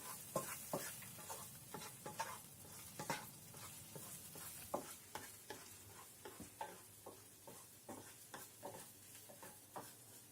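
Food sizzling faintly in a frying pan while being stirred, with irregular clicks and scrapes of a utensil against the pan.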